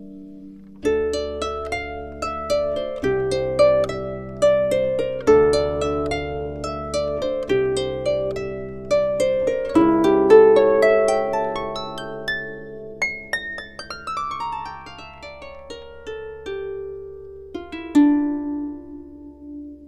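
Background music: a harp-like plucked-string instrumental, quick rippling notes that ring and fade over a low bass note that changes every couple of seconds, slowing and thinning near the end.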